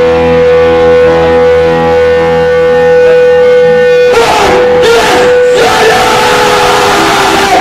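Heavy band playing live: a held, ringing guitar tone over a rhythmic low part, then about four seconds in the full band comes in much denser and noisier, the held tone wavering in pitch.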